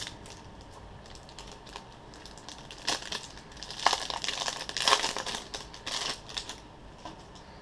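Plastic trading-card booster pack wrapper crinkling in short bursts as the pack is torn open and the cards are slid out, loudest through the middle seconds.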